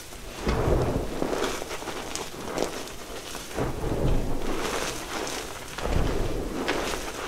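Hands squeezing and crushing loose, crumbly gym chalk powder: dry crunching and crumbling in about four slow squeezes, each starting with a soft thud, with sharp little crackles on top.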